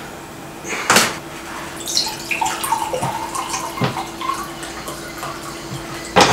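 Water poured from a jug into a drinking glass, a splashing, gurgling pour whose pitch rises in short steps as the glass fills. A sharp knock comes about a second in and another near the end.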